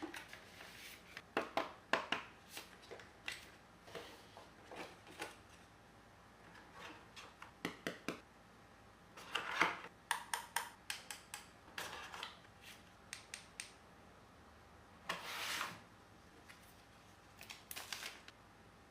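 A phone's retail box and packaging being handled and opened: scattered taps, clicks and short rubs, with a longer rustle about fifteen seconds in.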